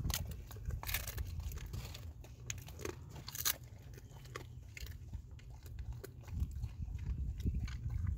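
A large boxer–Labrador mix dog chewing a duck head treat, with irregular sharp crunches as it bites through it, most frequent in the first few seconds.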